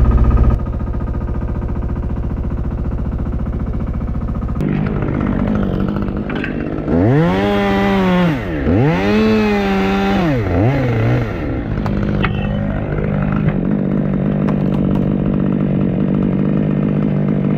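Chainsaw idling, then revved up and down three times about halfway through as it cuts an ash branch, settling back to a steady idle.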